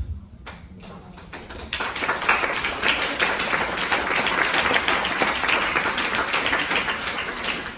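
A crowd of guests applauding: a few scattered claps that swell within about two seconds into full, steady applause.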